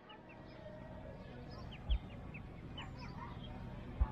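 Mute swan cygnets peeping: a scatter of short, high cheeps, each falling slightly in pitch. Two dull low bumps, about two seconds in and near the end.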